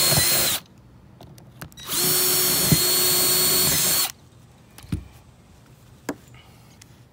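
Ridgid 12-volt cordless drill boring pilot holes for the foot-pedal switch screws, running at a steady speed: one run ends about half a second in, a second lasts about two seconds, then a few light knocks.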